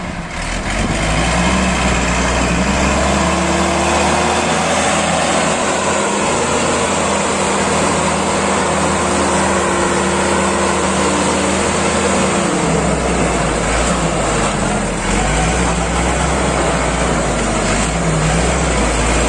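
Preet 6049 tractor's diesel engine running at steady revs while the tractor is bogged down in deep mud. The engine note changes about twelve seconds in.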